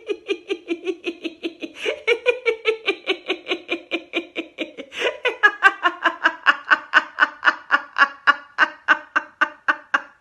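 A woman laughing hard and continuously in quick 'ha-ha-ha' pulses, about five a second, in three long runs with a breath between them; the last run is brighter and louder. It is laughter-yoga 'giggle phone' laughter, laughing into a pretend phone.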